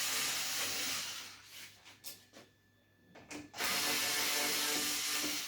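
A power tool runs in two spells of about a second and a half each, with a quiet pause between them.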